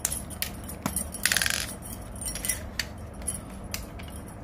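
Small plastic makeup containers being handled, making a few sharp clicks and taps. A short, fast rattle comes about a second and a half in, as the concealer is picked up and readied.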